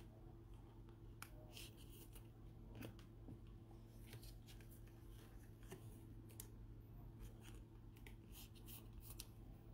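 Near silence: faint, scattered soft clicks and rustles of trading cards being handled in gloved hands, over a low steady hum.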